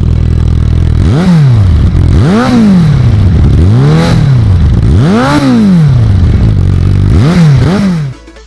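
Suzuki Bandit GSF650's inline-four engine through a Scorpion stainless aftermarket exhaust, idling and then revved in several sharp throttle blips, each rising and falling back to idle, the last two in quick succession. The sound cuts off abruptly shortly before the end.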